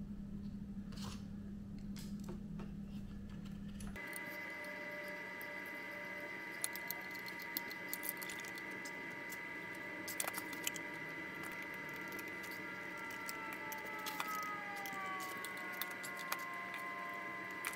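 Faint clicks and light metallic taps of small screws and a screwdriver being handled while fastening a chainsaw's plastic housing, over a steady background hum and faint whine; the hum changes about four seconds in.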